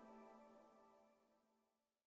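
Near silence: the last faint tail of a soft ambient music chord dying away about half a second in.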